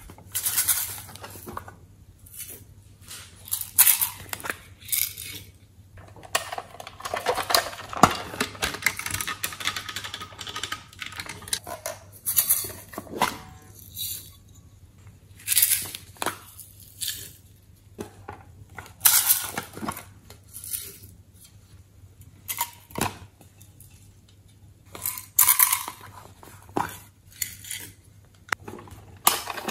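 Sequins and glitter rattling in small plastic containers as they are shaken and tipped out, and the pieces landing on slime in a glass tray. The rattling comes in short irregular bursts, one shake after another.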